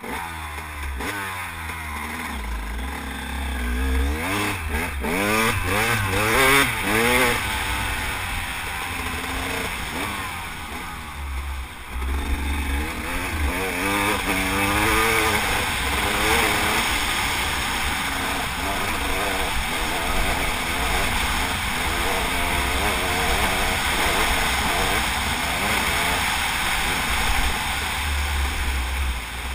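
Enduro dirt bike engine pulling hard and shifting gears, its pitch climbing and dropping again several times, with wind rumbling on the microphone.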